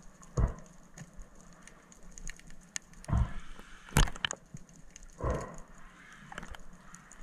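Muffled underwater sound around a freediver: a soft swell about every two seconds and one sharp click about four seconds in.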